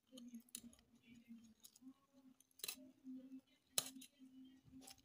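Metal fork clinking and scraping against a metal baking tray as it works a pile of fried instant noodles: a few sharp clicks, the loudest nearly four seconds in, over a faint steady hum.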